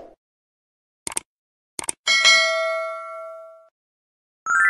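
Logo-animation sound effects: two short clicks, then a bell-like ding that rings out for about a second and a half, and a second, higher ding near the end.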